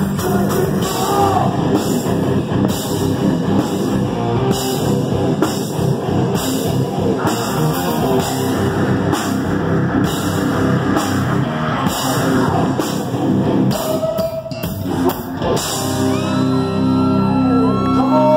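Loud live heavy rock band playing: distorted guitars, bass and a drum kit with a steady beat. The playing thins out briefly about fourteen seconds in, then comes back as a long held chord with sliding, whining high notes over it.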